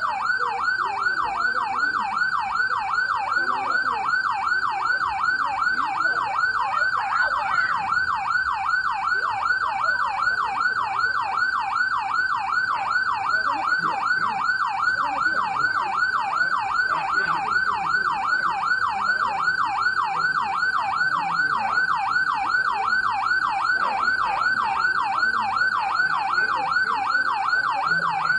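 Police siren in a fast yelp, its pitch rising and falling two or three times a second, steady and unbroken.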